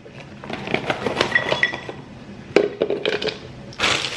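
Fruit chunks (mango and strawberry) dropping into a plastic Nutribullet blender cup, clattering in two bursts of quick knocks. Near the end comes a rustle of a plastic bag.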